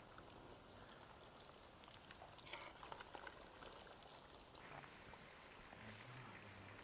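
Chicken pieces deep-frying in hot oil in an iron kadai: a faint, steady sizzle with a few soft crackles.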